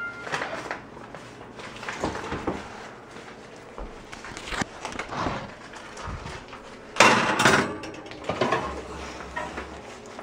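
Kitchen handling noises: scattered knocks, clinks and scrapes as a glass baking dish is handled, with a louder clatter about seven seconds in.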